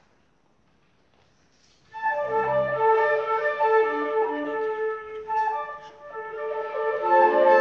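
Near silence, then music starts about two seconds in: a flute plays held and moving notes over other instruments.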